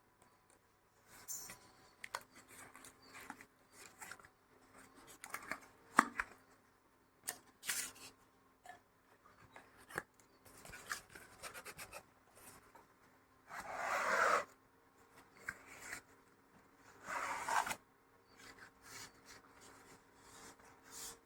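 Packaging being handled and opened while a vacuum flask is unboxed: intermittent rubbing, scraping and small clicks of cardboard and wrapping. Two longer, louder rasping rustles come in the second half.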